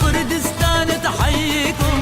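Song with a singing voice over a steady drum beat and backing melody.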